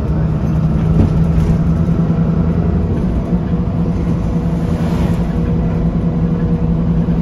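Alexander Dennis Enviro300 single-deck bus's diesel engine idling steadily, heard from inside the passenger saloon, with a single knock about a second in.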